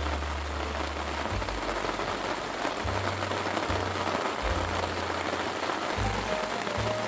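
Steady rain falling on a surface, with low bass notes of background music changing every second or so underneath.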